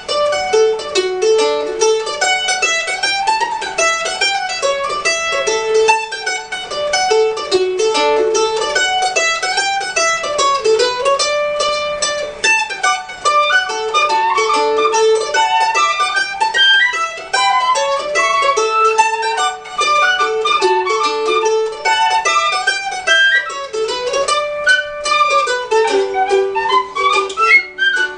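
Tin whistle and mandolin playing a traditional Irish hornpipe together, a quick, busy melody of short notes with the mandolin picking along.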